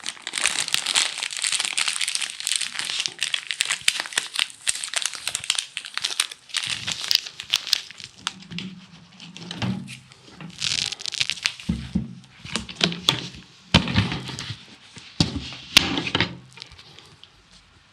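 Crinkling and rustling of paper and plastic packaging being handled with dry groundbait, dense for the first several seconds and then in shorter spells with soft knocks.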